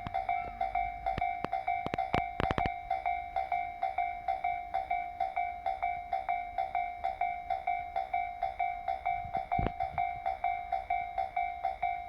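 Japanese level-crossing alarm ringing its steady, evenly repeated electronic ding, about three a second. A quick cluster of sharp clacks comes about two seconds in, and a single low thump near the end.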